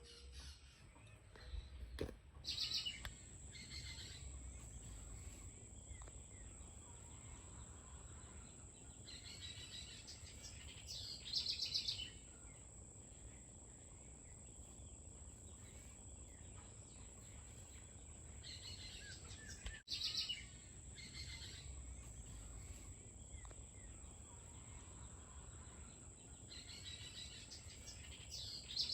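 A bird singing a short, fast trilled phrase four times, about every eight seconds, over a steady high-pitched whine and a low rumble.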